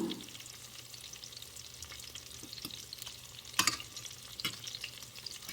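Breaded chicken cutlets frying in a pan of hot oil: a steady sizzle, with a few sharp clicks, the loudest about three and a half seconds in.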